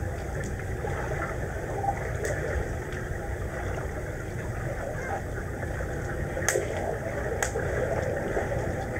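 Swimming-pool ambience heard from underwater: a steady low rumble with faint crackling. Two sharp clicks come about a second apart, a little past the middle.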